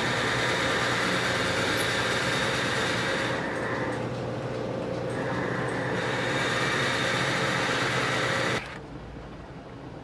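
Metal lathe running steadily with a hissing cut. The cut eases off for a couple of seconds in the middle, and the sound stops abruptly about eight and a half seconds in.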